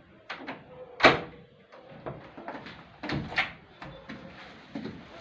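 A string of knocks and clatters from a door being handled, the loudest sharp knock about a second in and another cluster around three seconds in.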